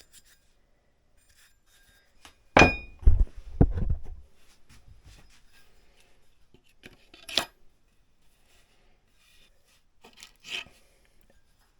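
A few knocks and clatters of wood and tools being handled and set down. The loudest come in a quick cluster about two and a half seconds in, the first with a brief ring, followed later by two lighter clicks.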